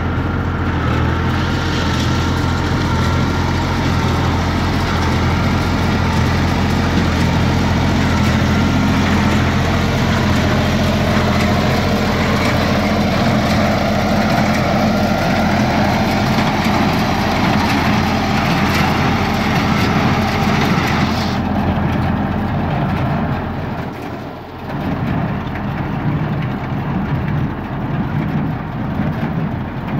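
Lamborghini R603 tractor's diesel engine running steadily as it pulls a working small square baler through windrowed hay. The higher hiss thins out about three-quarters through, and the level dips briefly near the end.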